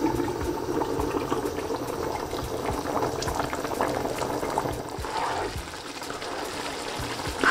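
Basmati rice boiling in spiced chicken stock in a large pot: a steady bubbling with many small pops.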